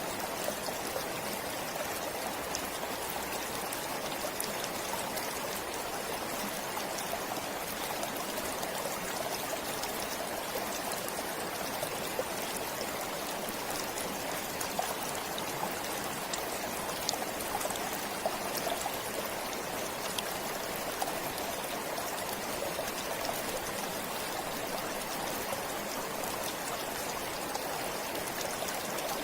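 Stream flowing steadily, an even rush of water with small scattered splashes.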